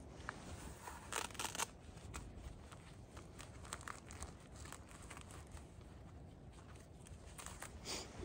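Hiker's footsteps and trekking poles scuffing and clicking on rock, with louder scrapes about a second in and near the end.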